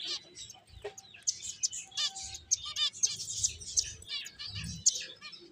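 Several pet finches chirping busily, many short high calls overlapping, with a few soft low thuds now and then.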